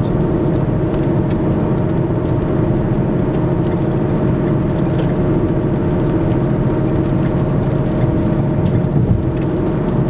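Car driving at highway speed, heard from inside the cabin: steady engine and road noise.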